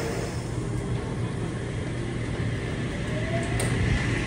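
Sydney Trains H set (OSCAR) electric train standing at the platform, its equipment giving a steady low hum. A brief faint rising whine comes about three seconds in.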